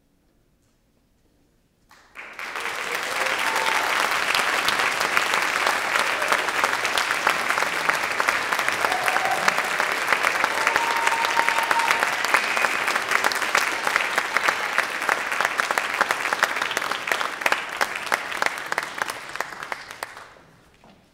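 Audience applauding, breaking out suddenly about two seconds in and fading away near the end.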